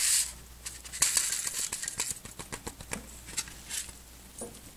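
Glass laboratory flask rubbing and clicking against a wooden bench top as it is handled: a short scrape at the start, then a run of light clicks and scrapes, busiest about a second in, fading toward the end.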